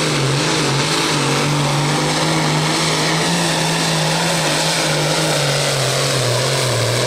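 Modified Case 1370 pulling tractor's engine running flat out under the load of the sled, a loud steady engine note that sags and recovers slightly a couple of times.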